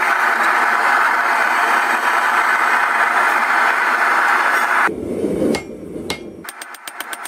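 A gas forge's burner running with a steady rushing noise for about five seconds. After a break, a hammer strikes the hot steel axe head on the anvil in a quick run of blows, about six a second, near the end.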